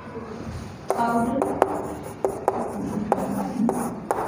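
Chalk writing on a blackboard: irregular sharp taps and light scratching as words are written, several taps a second from about a second in.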